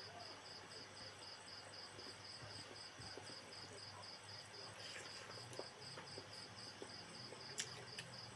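A cricket chirping steadily in the background, a high pulsing chirp about three times a second, with a few faint clicks.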